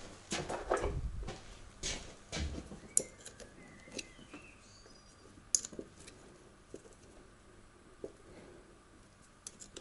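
Scattered clicks, knocks and rustles of hands handling car battery cables and tools, busiest in the first three seconds and then sparse. Faint bird chirps in the background.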